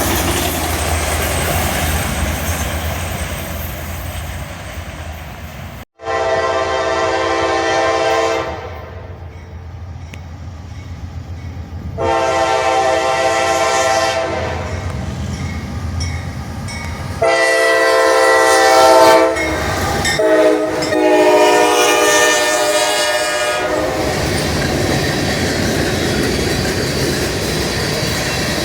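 Train rumbling and clattering along the rails, then, after a sudden break, its multi-tone air horn sounds two long blasts and a longer final sequence. The rolling noise of the train continues after the horn stops.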